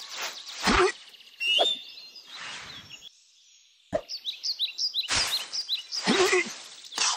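Cartoon sound effects: a series of swishing, plopping sounds as a pile of leaves is tossed about. After a brief pause and a sharp click, a run of short, high, falling chirps follows.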